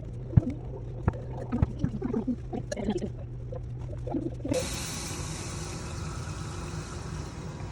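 Small clicks and knocks of banana peels and jars being handled, then, about halfway through, water starts running steadily into a jar to cover the peels.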